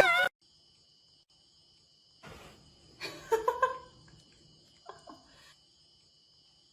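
Laughter cut off abruptly at the very start, then a dog making a few faint, short pitched sounds over a faint steady high whine.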